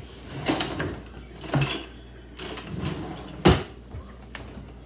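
Kitchen clatter: a handful of separate knocks and clinks, the sharpest about three and a half seconds in, as chopped chocolate is tipped from a plastic cutting board into a stainless steel mixing bowl.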